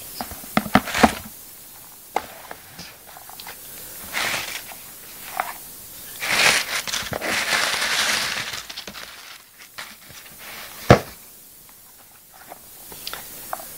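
Tissue paper rustling and crinkling in a cardboard shoebox as a pair of high heels is unwrapped and handled, with a few light taps early on, a longer spell of crinkling in the middle and one sharp knock near the end.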